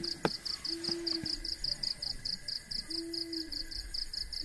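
Crickets chirping at night in a fast, even pulse of about five or six chirps a second. Short low calls of about half a second each come in three times.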